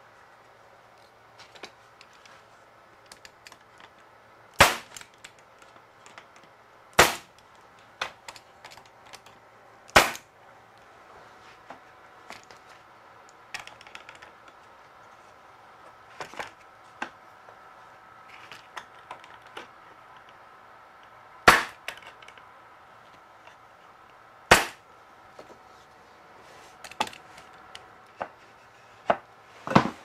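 Pneumatic stapler firing 1.5-inch galvanized staples into the corners of a wooden box frame. It fires five sharp shots: three within the first ten seconds, then two more a few seconds apart later on. Between the shots come lighter knocks and clicks of the wood being handled.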